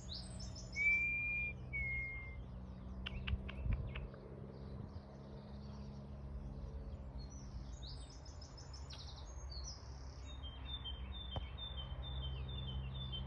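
Several garden birds singing: short trilled phrases, a clear whistled note about a second in, and a run of evenly repeated chirps from about ten seconds in. A steady low hum lies underneath.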